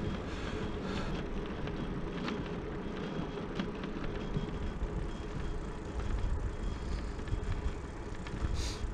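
Steady wind rumble on the microphone with tyre noise on asphalt from a touring bicycle being ridden along a road.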